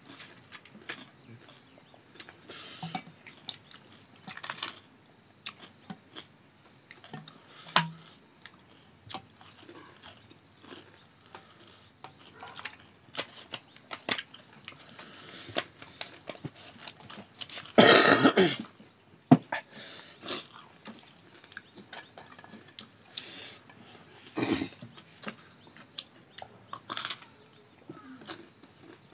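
Close-up eating sounds: chewing and mouth smacks with small clicks of hands, plates and cutlery, over a steady high chirring of insects. One louder, noisy outburst comes about two thirds of the way through.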